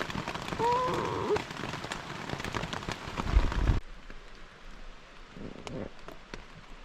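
Rain pattering on a backpacking tent, a dense hiss of many small drop hits, with a short pitched glide about a second in and a low thump near the middle. Just short of four seconds in the loudness drops suddenly and the rain goes on as a lighter hiss with scattered drops.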